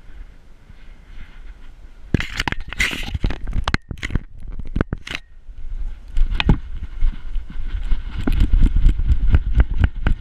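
Clatter, scraping and crackle from a GoPro camera and its harness mount strapped to a beagle's back as the dog moves about. From about six seconds in the clatter turns into quick, steady thumps and rattles as the beagle runs across grass.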